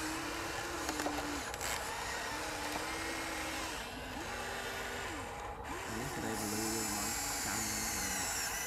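Small electric motors of a Huina RC excavator whining in short spells, each rising in pitch, holding and falling away as the arm and bucket move and the upper body swings.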